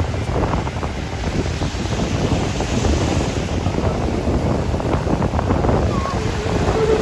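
Wind buffeting the microphone over the steady wash of ocean surf. Near the end comes a short, wavering voice.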